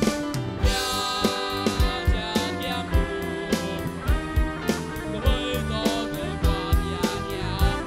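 Live instrumental music from an electronic arranger keyboard, with drum beats from an Octapad electronic percussion pad struck with sticks. Sustained keyboard notes run over a steady beat.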